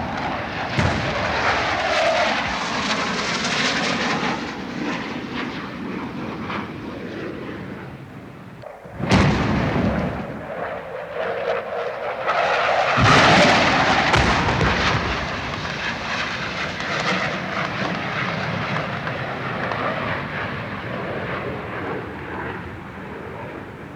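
Air strike sound effect: aircraft engine noise mixed with explosions. A sudden blast comes about nine seconds in and a bigger one about four seconds later, each followed by a long rumble that slowly fades.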